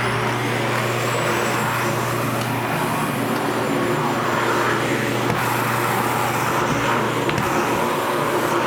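Vacuum cleaner running: a loud, steady whir with a low hum underneath.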